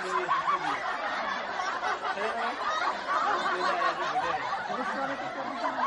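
Several people laughing and chattering at once, a dense overlapping mix of voices with no single clear speaker.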